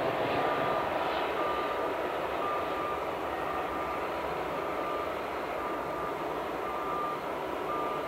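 Boeing 747 freighter's jet engines running as the aircraft flares, touches down and rolls out: a steady roar that eases slightly. A short high beep repeats about once a second throughout.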